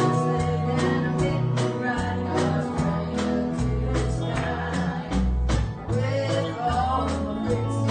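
A live country-gospel band playing with a steady beat: electric guitar, bass and drums, with voices singing.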